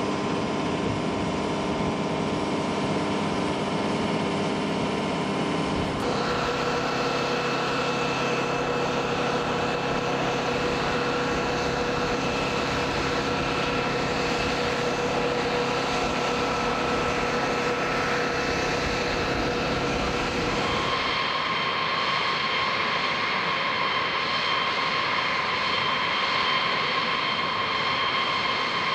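B-52H Stratofortress's TF33 turbofan jet engines running on the ground: a steady rushing noise with a high whine. The whine's pitch jumps abruptly twice, about six seconds in and again about two-thirds of the way through.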